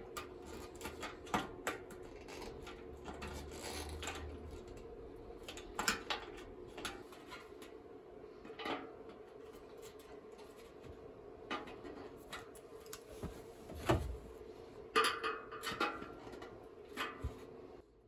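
Long-nose pliers clicking and knocking against metal and plastic as a crushed bit of metal on a tumble dryer's front frame is worked back into shape. Scattered, irregular clicks with one louder knock partway through, over a steady hum.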